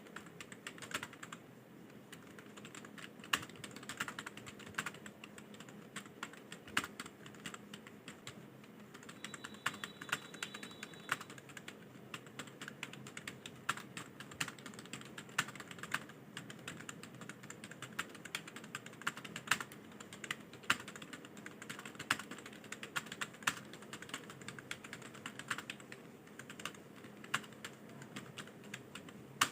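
Computer keyboard being typed on fast, with a rapid, uneven run of keystroke clicks, as in timed speed-typing practice.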